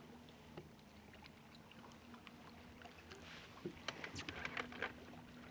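Water lapping against a boat hull, with a faint steady hum underneath; a flurry of light ticks and splashes starts about three and a half seconds in.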